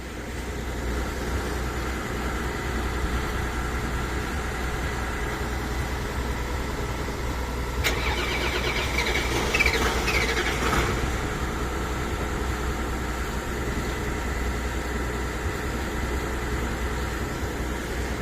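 An engine running steadily with a strong low hum. About eight seconds in there is a sharp click, then a couple of seconds of falling whining tones over the engine.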